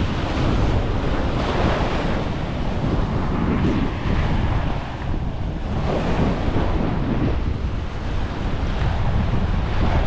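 Surf washing onto a beach, heavily overlaid by wind buffeting the microphone, a constant rumbling rush that swells and eases.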